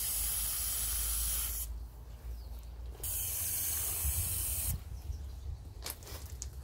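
Garden hose spray nozzle spraying tap water into a plastic tub: a steady hissing splash that breaks off for about a second, comes back, and stops for good about two-thirds of the way through.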